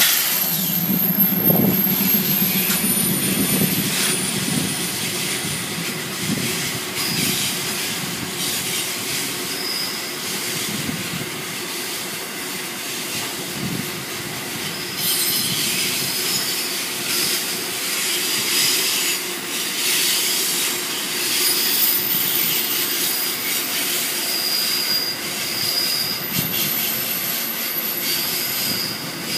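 CFCLA freight train rolling past: a CM-class diesel locomotive's low rumble in the first few seconds, then a long string of open wagons running by, their wheels squealing in thin high tones that come and go, with faint clacking over the rail joints.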